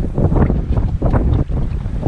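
Wind buffeting the microphone: a loud, gusting low rumble that swells and dips irregularly.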